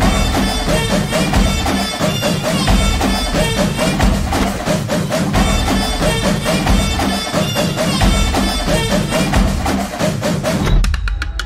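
Cinematic trailer music with rapid percussion hits over heavy bass and repeated pitched notes; it breaks off briefly near the end.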